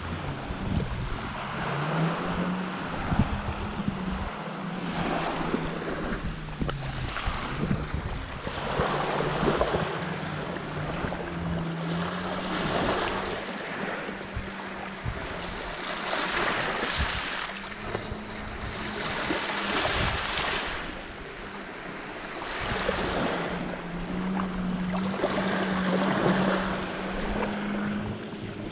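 A motor running with a steady hum that steps up and down in pitch, under rushing water that swells and falls every few seconds, with wind buffeting the microphone.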